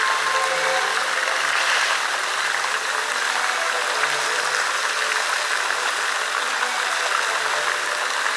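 Musical fountain jets spraying and splashing into the pool, a steady rush of falling water, with faint music from the fountain's loudspeakers under it.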